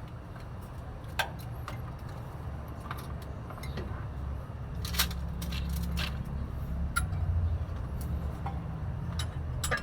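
Scattered sharp metallic clicks and clinks, as of tools or small metal parts being handled, over a steady low rumble.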